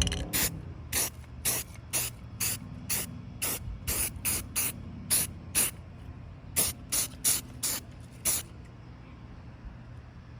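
Aerosol can of primer spraying in short bursts, about two a second, as primer goes onto a sanded truck door handle; the bursts stop a little over eight seconds in.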